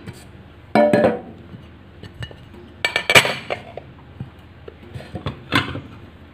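An aluminium cake pan and a ceramic plate knocking and clinking as a sponge cake is turned out of the pan: three main separate knocks with a short ring, the loudest near the middle, and a few lighter taps between.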